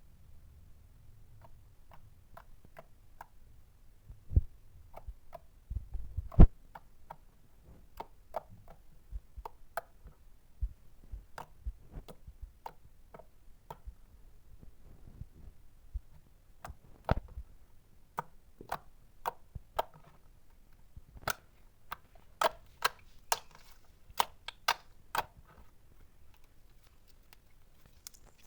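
Avalanche slime being pressed and poked by hand, giving off irregular sharp clicks and pops, denser toward the end.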